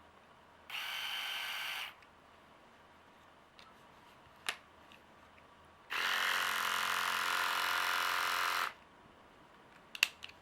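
Remington R5130 rotary electric shaver running twice: a short run of about a second, then a longer steady run of nearly three seconds. A few sharp clicks fall between and after the runs.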